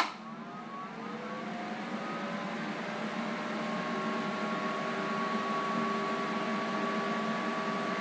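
A click from the start button, then a 100 amp Magna-Power DC power supply runs up under load into a short-circuited output. Its whir and several whining tones rise in pitch and loudness over about the first three seconds as the output current ramps up slowly, then hold steady.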